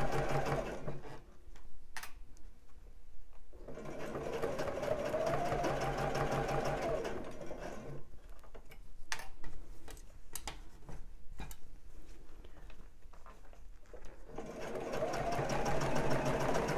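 Juki computerised sewing machine running a straight stitch in short runs, with a fast, even needle rhythm. It stops about a second in, sews again for about four seconds, and then pauses for several seconds with a few light clicks. It starts sewing again near the end.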